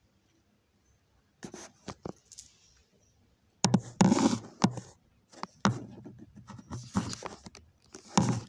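Irregular knocks and clatters, with rustling or scraping noises in between, loudest about four seconds in and again near the end.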